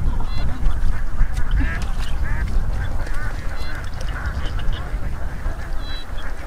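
A flock of ducks quacking, many short calls overlapping, over a steady low rumble.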